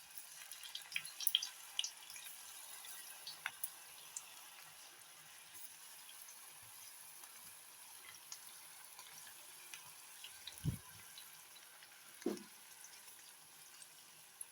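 Cornflour-battered jackfruit pieces frying in hot oil in a kadai: a soft, steady sizzle with scattered crackles, mostly in the first few seconds. Two dull knocks come near the end.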